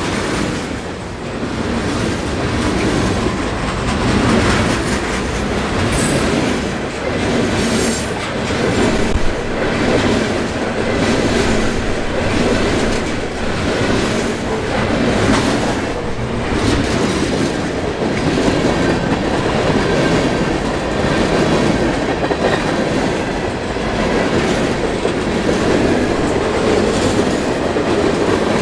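Freight train cars rolling past close by: a steady rumble of steel wheels on rail, broken by a repeated clickety-clack as the wheels cross rail joints.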